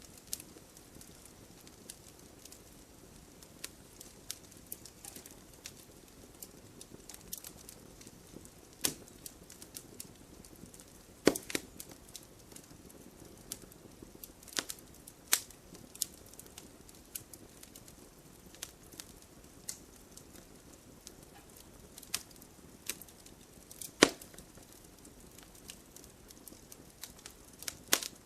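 Wood fire crackling in a fireplace: a steady low hiss under scattered small crackles, with a few sharp louder pops, the loudest about 11 and 24 seconds in.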